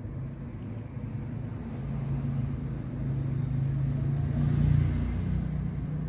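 Low steady motor hum, like a vehicle engine, growing louder to a peak about five seconds in and then easing off.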